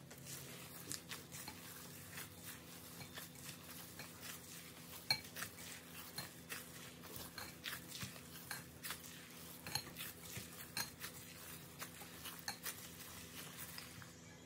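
Soft zucchini dough kneaded by a gloved hand in a glass bowl: quiet squishing with frequent light clicks and knocks from the bowl, the sharpest about five seconds in.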